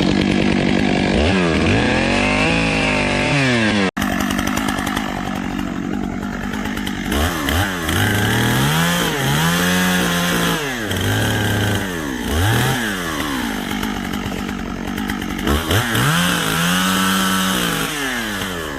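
Chainsaw running and cutting wood, its engine revving up and down again and again as the throttle and load change. The sound drops out for an instant about four seconds in.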